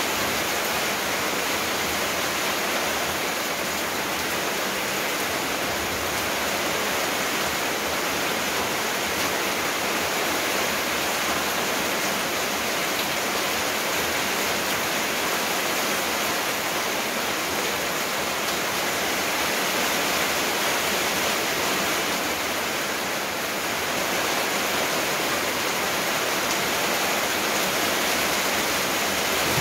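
Steady rushing water sound, even and unbroken, with no distinct drops or splashes standing out.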